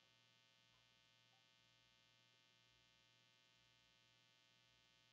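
Near silence: room tone with a very faint steady electrical hum.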